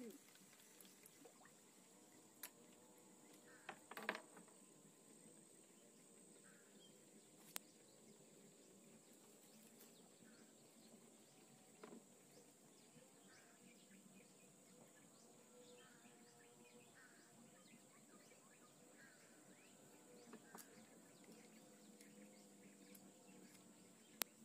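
Near silence: faint riverside forest ambience, a steady high-pitched insect drone with scattered faint bird chirps. A few sharp clicks stand out, the loudest about four seconds in and another just before the end.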